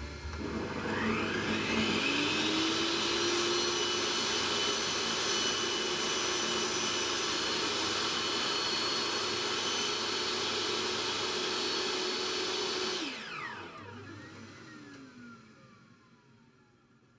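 Bosch PTS 10 table saw motor starting up with a rising whine, running steadily for about twelve seconds, then switched off and winding down with a falling whine as the blade coasts to a stop.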